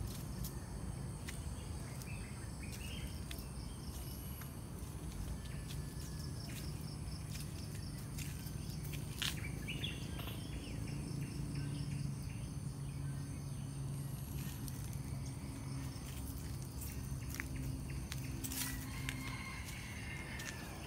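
Outdoor ambience of insects droning steadily in a high, even tone, with scattered short bird chirps and a low steady rumble underneath.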